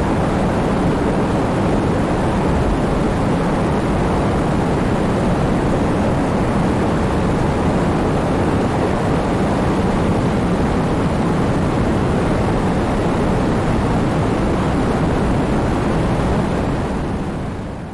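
Heavy rain falling in a steady downpour, a dense even hiss that fades out near the end.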